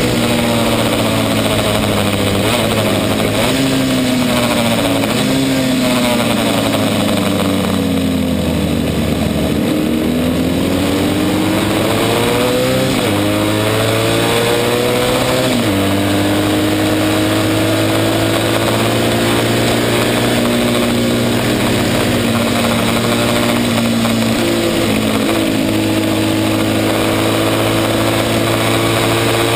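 Racing motorcycle engine at speed on the track, close to the engine: the revs fall away for several seconds as the bike slows, then climb again, with two sudden drops in pitch around the middle as it shifts up, and rise steadily after that. A rushing hiss of wind on the microphone runs under it.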